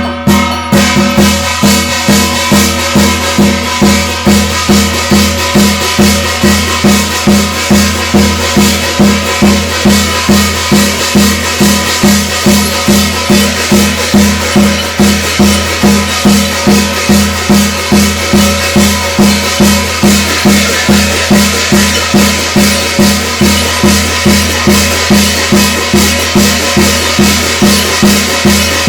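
Percussion music for a Korean shamanic gut ritual: a steady beat of about two strokes a second, with a bright, jangling high sound over it.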